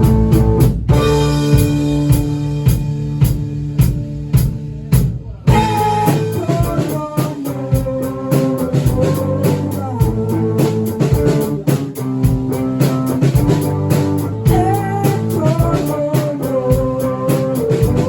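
A rock band playing live: electric guitar, bass and drums. About a second in, the drums stop and a guitar chord is left ringing; the full band comes back in about five and a half seconds in, with a guitar lead line over the beat.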